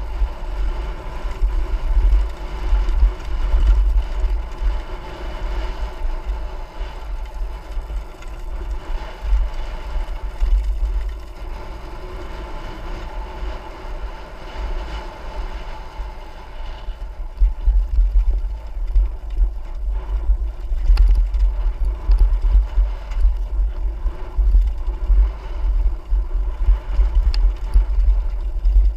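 Trail motorcycle engine running under way, with heavy wind buffeting on the microphone. It gets louder and rougher in the second half.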